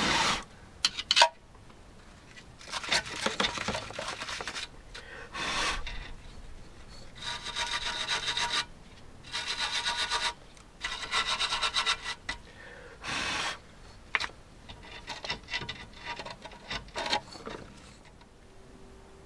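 A few sharp clicks, then a series of rasping, scraping strokes, each about a second long, from hand work on a rusty brake caliper. Scattered clicks follow near the end.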